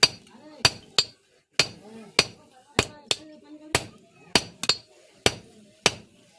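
Blacksmith's hammer striking steel on an anvil in a steady forging rhythm, about two sharp ringing blows a second, with now and then a lighter tap close after a blow.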